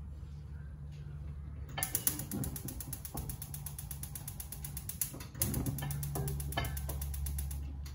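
Gas stove's electric igniter clicking rapidly in two spells as a burner is lit, over a low steady hum.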